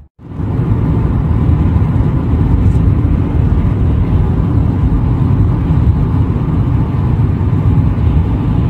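Steady road and wind noise of a car driving along, heard from inside the car, low and rumbling. It starts abruptly just after a short gap.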